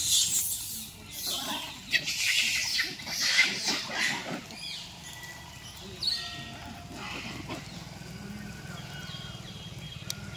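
Rhesus macaques in a packed troop shrieking, a run of loud, high-pitched screams over the first four seconds or so. After that come a few quieter calls over a low steady hum.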